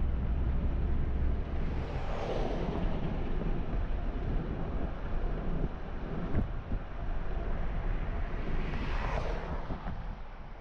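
Car driving on a road: a steady low rumble of engine and tyres with wind noise, and a louder whoosh of passing traffic about two seconds in and again near the end.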